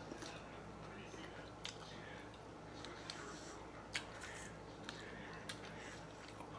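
Quiet eating sounds: chewing, with a few short, sharp clicks and taps as fried chicken nuggets are picked out of stainless-steel bowls, over a low steady hum.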